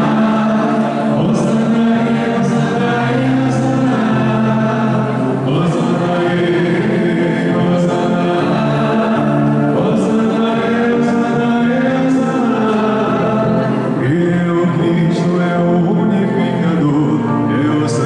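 A congregation singing a hymn together, many voices holding sustained notes, with a faint tap roughly once a second.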